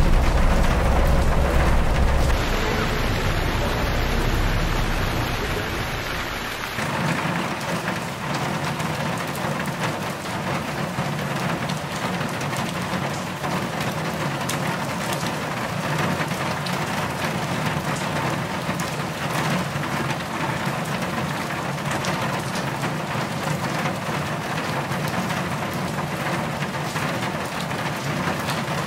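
Heavy monsoon rain pouring down steadily. For the first six or seven seconds a deep low rumble lies under the rain, then it cuts off abruptly.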